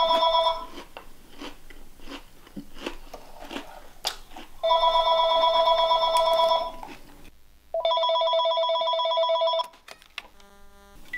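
Cordless landline telephone ringing three times with an electronic two-tone ring, each ring about two seconds long, with crunching cereal and spoon clinks on the bowl between rings. A short electronic tone sounds near the end as the phone picks up.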